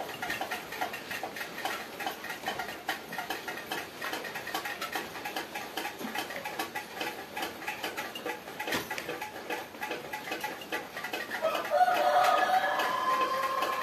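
Coloured pencil scratching on paper in quick, repeated strokes. A rooster crows once near the end.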